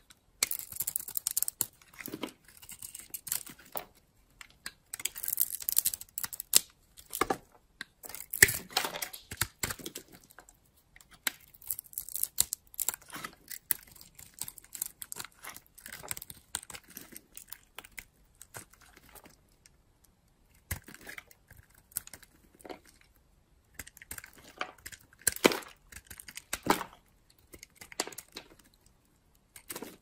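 Snap-off utility-knife blade cutting and scraping dry soap: crisp, crunchy crackling in irregular strokes with short pauses between them.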